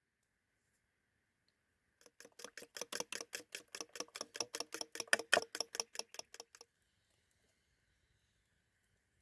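A mixture being whisked briskly in a bowl, the whisk striking the bowl about seven or eight times a second with a slight ring from the bowl. The whisking starts about two seconds in and stops after about four and a half seconds.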